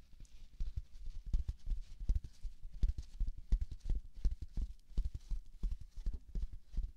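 Fingers tapping and pressing a black foam sponge held against the microphone, making a quick, uneven run of soft low thumps, several a second.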